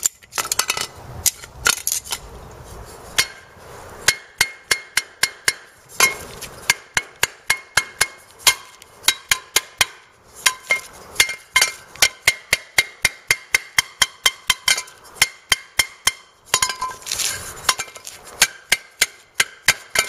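Brush cutter's sheet-metal muffler being tapped: a long run of sharp metallic knocks, about two to three a second with short pauses, knocking loose the carbon burnt inside it. A few seconds of scattered metal clinks come before the knocking starts.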